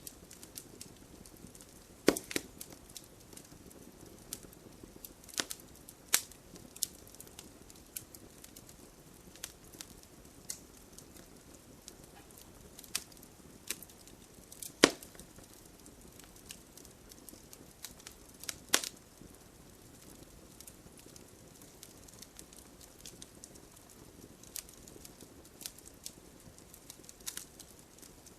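Campfire crackling: irregular sharp pops and snaps over a low, steady hiss of burning, with the loudest snaps about two seconds in and around the middle.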